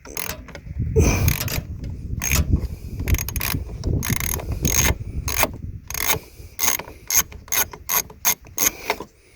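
Ratchet wrench clicking in short back-and-forth strokes as an 8 mm bolt is loosened, the clicks coming faster and closer together near the end.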